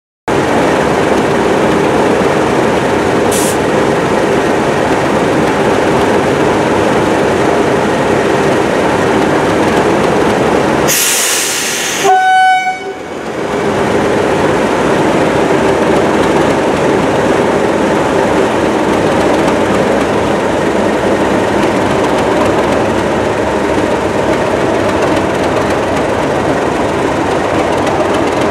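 Diesel locomotive running steadily on the line, with a brief hiss and then a short horn note about twelve seconds in.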